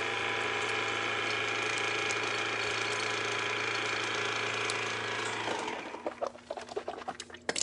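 Electric toothbrush running in the mouth with a steady buzz, switched off about five and a half seconds in, followed by a few faint knocks and clicks.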